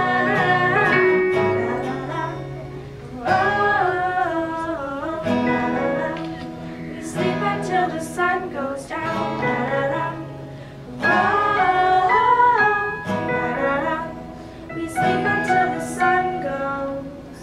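Live acoustic song: two acoustic guitars strummed with an electric keyboard, girls singing phrases of a few seconds each. The playing dies down near the end as the song finishes.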